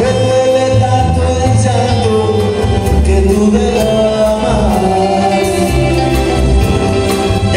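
Live band playing a slow song: a man sings long, gliding notes into a microphone over electric guitar, bass and a drum kit with cymbal strokes.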